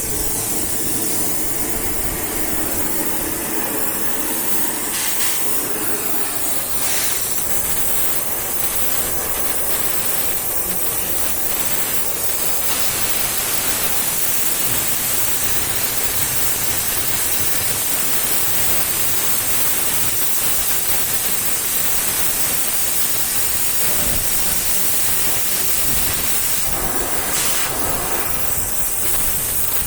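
Gas cutting torch hissing steadily and loudly, the hiss growing fuller about twelve seconds in, with a few brief knocks.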